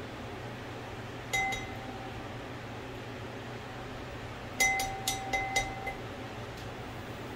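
Ceramic kitchen bowl clinked by something hard: one ringing clink, then a quick run of five or six clinks a few seconds later, over the steady hum of a kitchen fan.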